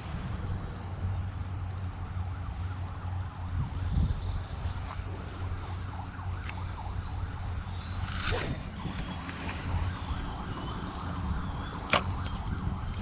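Wind rumbling steadily on the microphone, with a sharp click about eight seconds in and another near the end, and a few faint short high chirps in between.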